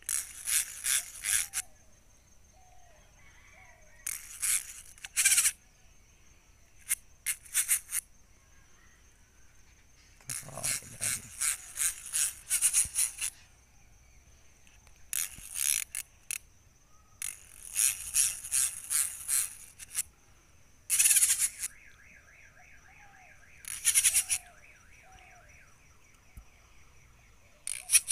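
Fishing reel clicking in repeated rapid bursts of one to three seconds, several times over, with a big rohu hooked and running on the line.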